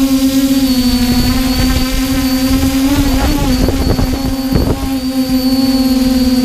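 Multirotor drone's motors and propellers humming steadily at a near-constant pitch, close to the on-board microphone. For a couple of seconds in the middle the pitch wavers a little and some rough, crackly noise breaks in.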